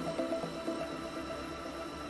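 Background music of quick plucked notes fading out about half a second in, leaving faint steady background noise.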